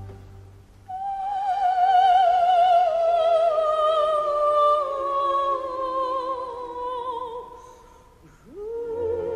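Operatic soprano singing one long phrase with wide vibrato that slowly descends in pitch, almost unaccompanied. Near the end the line breaks off briefly, then a new note glides up into place as the orchestra comes back in underneath.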